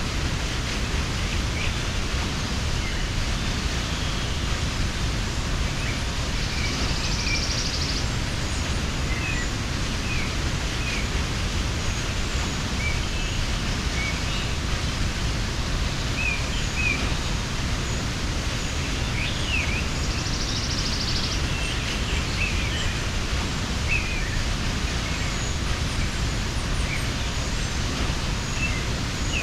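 Waterfall rushing with a steady, unbroken roar of falling water. Small birds chirp on and off over it, and a short high buzzing trill sounds twice.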